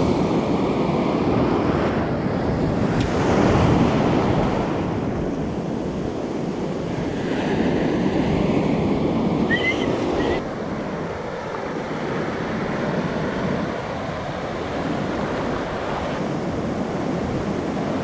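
Surf breaking and washing over the shallows close by, a little softer after about ten seconds.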